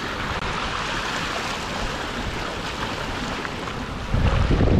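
Mountain bike tyres rolling and splashing down a trail awash with running floodwater: a steady rushing hiss. From about four seconds in, wind buffets the microphone with a low rumble.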